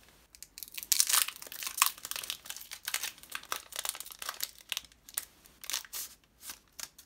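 Foil wrapper of a Pokémon Crimson Invasion booster pack crinkling and tearing as it is opened by hand, in irregular crackles that are loudest about a second in, then lighter rustling as the cards are pulled out.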